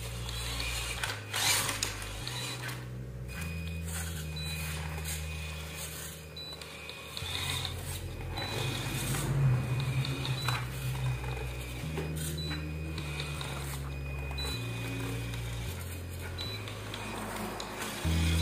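Small 180-size brushed motor and gearbox of a WPL RC truck whining as the truck is driven back and forth under throttle, the tone changing every second or two, with a few sharp clicks.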